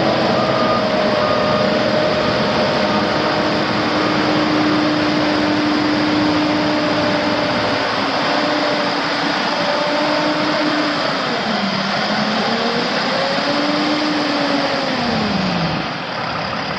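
2013 Western Star 4900EX semi truck's Cummins ISX15 six-cylinder diesel running, loud and steady over a rushing noise. Its pitch holds, dips once about two-thirds of the way in, then slides down near the end as the sound eases off.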